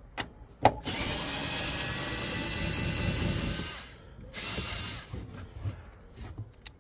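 Power drill-driver spinning off the nuts that hold a car's tail light from inside the boot. It runs steadily for about three seconds, then again briefly, after a sharp click.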